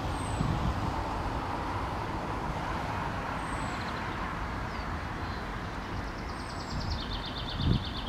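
Steady low rumble of city traffic, with a few faint, thin, high falling calls of small birds and a rapid trill starting about six seconds in. A brief low thump near the end.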